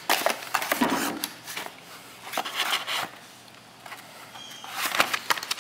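Rustling and scraping of military ration packs in paper and cardboard sleeves being picked up and handled, in three short spells with a few sharp clicks.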